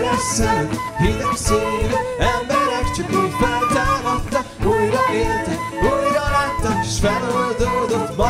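Live band playing a song: a man and a woman singing over electric and acoustic guitars and bass guitar, with a regular beat.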